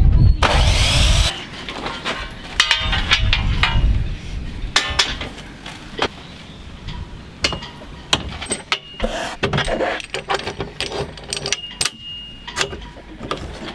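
Sliding mitre saw cutting aluminium angle: the motor runs and the blade makes a harsh high cutting noise through the alloy for about a second at the start, then stops. After that, scattered metallic clinks and clicks as the cut alloy pieces are handled and the saw's hold-down clamp is set.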